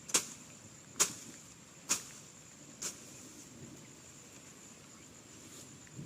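Grass being cut by hand with a blade: four quick swishing strokes about a second apart, fading over the first three seconds. A steady high insect drone runs under them.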